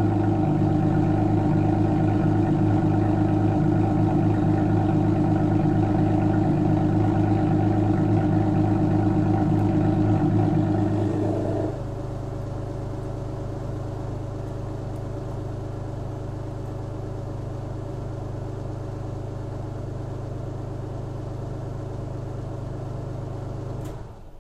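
Alfa Romeo GTV 3.0 V6 24V 'Busso' engine idling after a cold start with the exhaust bypass open, a steady deep note. About halfway through it suddenly turns quieter and more muffled and carries on at the lower level, then cuts off near the end.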